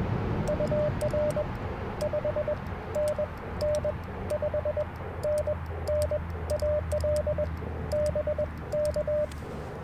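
Morse code (CW) signal received on the 40-metre amateur band through an Icom IC-705 transceiver. It is a single mid-pitched tone keyed in quick dots and dashes over a steady hiss of band noise, and it stops shortly before the end.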